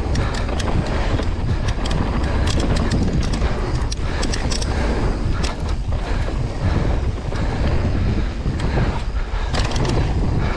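Wind buffeting a camera microphone over the steady rumble of mountain-bike tyres rolling on a dirt trail, with bursts of rattling clicks from the bike over bumps about a third of the way in and again near the end.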